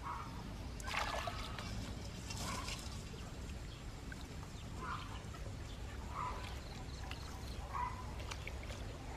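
Gloved hands digging into waterlogged mud, with wet squelching and trickling water in short recurring sounds every second or two.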